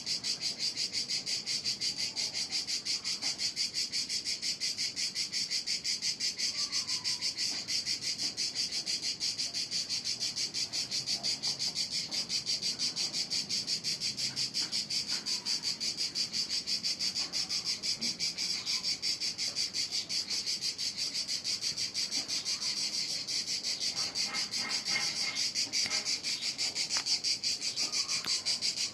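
Singing insects: a steady, high-pitched, rapidly pulsing buzz that holds unbroken at an even level throughout, with a few faint short chirps lower in pitch.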